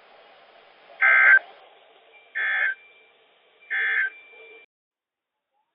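Emergency Alert System end-of-message data bursts from NOAA Weather Radio: three short, buzzy digital warbles about 1.3 s apart, marking the end of the alert. They sit over faint radio hiss that cuts off suddenly near the end.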